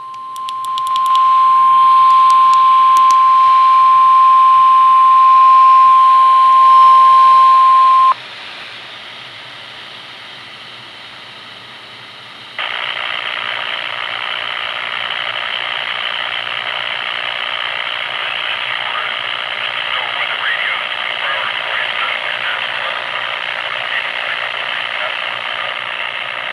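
NOAA Weather Radio broadcast sounding its steady warning alarm tone of about 1050 Hz, which swells in the first second or so and cuts off suddenly about eight seconds in. Faint hiss follows, and from about twelve seconds in a louder, steady radio static hiss.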